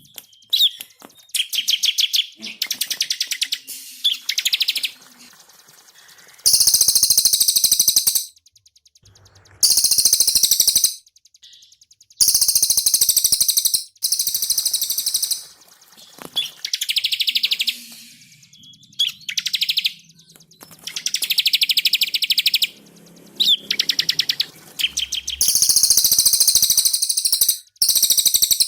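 Cililin and ciblek songbirds singing in turn: loud, rapid trilled phrases of one to two seconds each, with short gaps between them.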